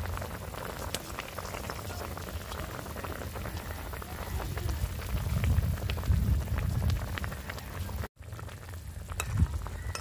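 Climbing perch curry boiling hard in an oily gravy in a kadai, a dense, steady bubbling crackle. A low rumble swells under it in the middle, and the sound cuts out for a moment about eight seconds in.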